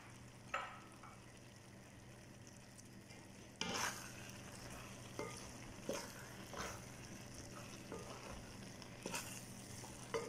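Wooden spatula stirring and scraping through cooked rice and chopped coriander in a pan. The strokes start about three and a half seconds in and come every second or so, over a faint steady hum.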